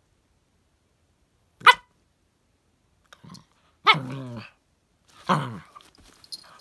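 Chihuahua–miniature pinscher mix puppy giving one short, sharp bark, then two drawn-out bark-howls about a second and a half apart, each falling in pitch.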